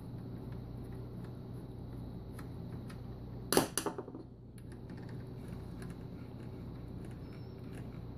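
Light clicks of a screwdriver and screws being worked against the sheet-metal chassis of a laser printer, over a steady low hum, with one short sharp clatter of a few quick strikes about three and a half seconds in.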